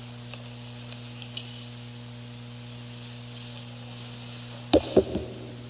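Steady low electrical hum with faint hiss from the church sound system, then a few sharp knocks close together about five seconds in, as something is handled on the pulpit near its microphone.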